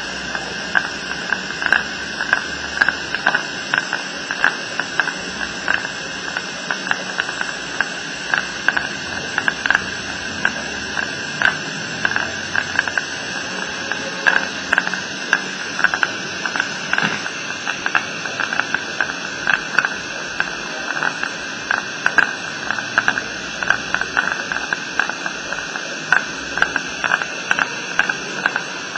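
A steady hiss with a faint high whine, broken by frequent short irregular clicks and crackles.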